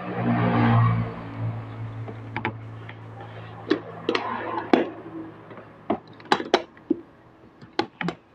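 6-cup aluminium moka pot being screwed together by hand: a rough grinding of metal on metal at first, then a run of sharp, irregular clicks and knocks as the chamber is twisted tight.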